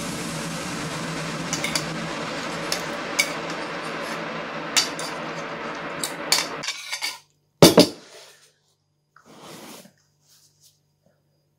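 Metal spoon clinking against a ceramic bowl during a meal of noodles: a run of sharp, single clinks over a steady hiss that stops abruptly about seven seconds in. Then comes a louder double clunk as the bowl is set down.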